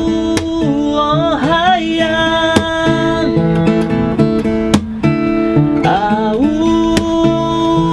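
Acoustic guitar strummed, with a man singing along in long, wavering notes about a second in and again near six seconds.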